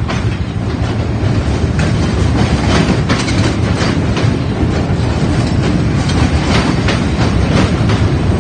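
R68-series New York City Subway cars rolling along the platform: a low rumble with steel wheels clicking over the rail joints, growing louder over the first second or so and then holding steady.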